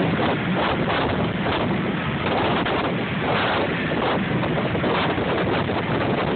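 Blizzard wind blowing hard across the microphone, a loud, steady rushing.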